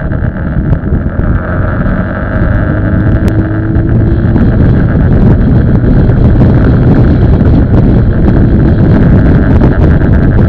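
Wind buffeting the microphone of a camera on the handlebars of a moving bike: a dense, loud low rumble with no clear engine note, growing louder about four seconds in.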